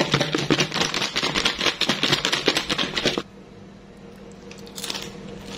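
Fried potato wedges shaken in a clear plastic tub with seasoning powder: a fast, dense rattle that stops abruptly about three seconds in, leaving a faint low hum.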